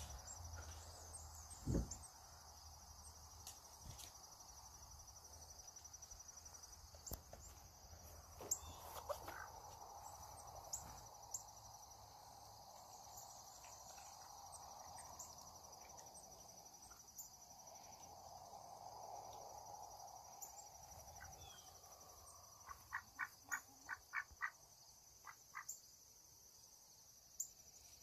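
Insects chirring steadily at a high pitch, faint, with scattered short ticks. A quick run of short chirps comes near the end.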